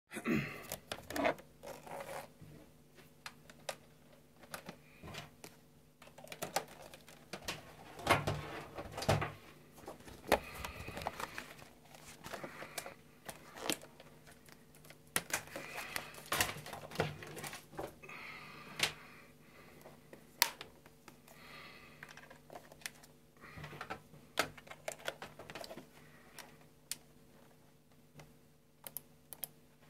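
Scattered clicks, knocks and rustles of a TB-303 bass synthesizer (Devil Fish mod) being handled and its buttons pressed, over a faint steady hum.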